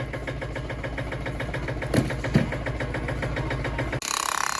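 Digger's engine running steadily with an even beat, and two sharp knocks about two seconds in. Near the end it gives way abruptly to rapid hammering.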